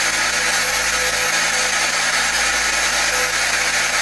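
Spirit box sweeping through radio frequencies, giving a loud, steady hiss of radio static.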